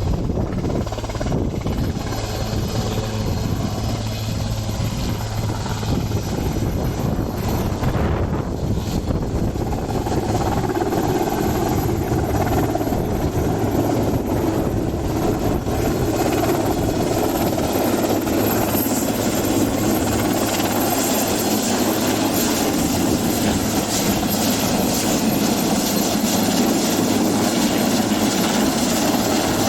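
Helicopter rotors and engine running continuously, a steady dense whirring drone that grows slightly louder over the stretch.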